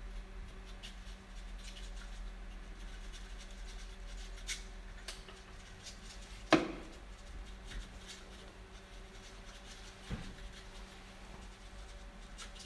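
Quiet room with a faint steady hum and a few light clicks, and one sharp knock about six and a half seconds in.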